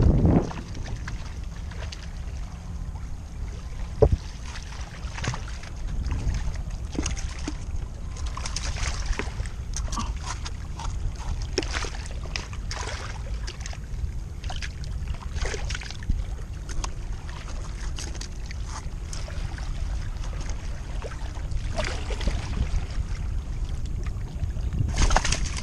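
Wind rumbling on the microphone, with water at the shore rocks, and scattered small clicks and knocks, one sharper knock about four seconds in.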